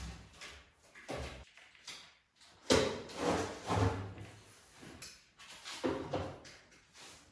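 Irregular handling noises: several short scrapes and knocks with quiet gaps between them, the loudest a little over a third of the way in, from hand work with a caulking gun at a plastered wall.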